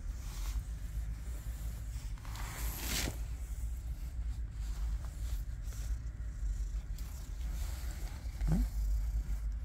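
Scratchy rustling of a hand rubbing a cat's fur, loudest for about a second two seconds in, over a steady low rumble. A short rising sound comes near the end.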